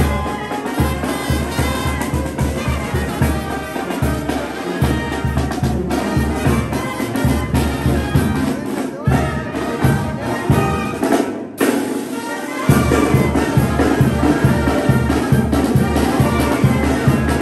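Brass band music with trumpets over a steady, pulsing bass beat. About two-thirds of the way in the low beat breaks off for a moment, then the band comes back in louder.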